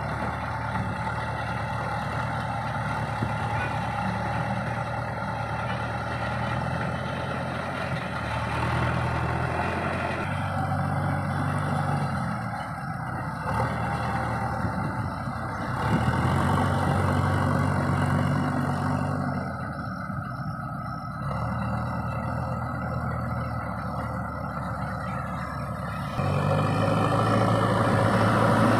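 Heavy diesel engines of a JCB 3DX backhoe loader and an Ashok Leyland truck running under load as the loader pushes the stuck truck from behind with its front bucket. The engine note steps between several steady pitches, louder near the end.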